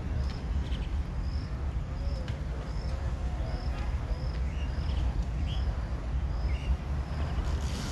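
A bird repeating a short high chirp about every half second, with a few shorter rising notes in between, over a steady low rumble.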